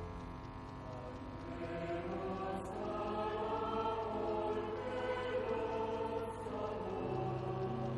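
Slow choral or chanted singing with long held notes: music for communion at Mass.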